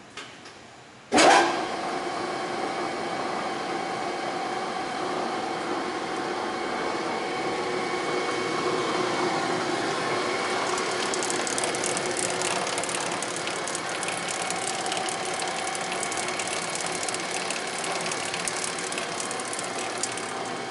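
Peerless Hallmark HM300 single sigma mixer starting up about a second in with a sudden loud clunk, then running steadily with its empty sigma blade turning, a steady gear-drive whine. From about halfway a fast rattling clicking joins in.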